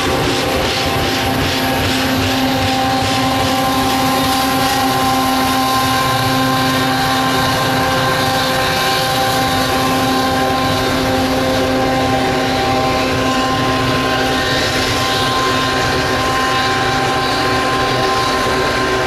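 Diesel-electric freight locomotive running under power as it hauls a train of hopper cars past at close range: a steady engine drone over rolling wheel noise, with wheels clicking regularly over the rail joints in the first few seconds.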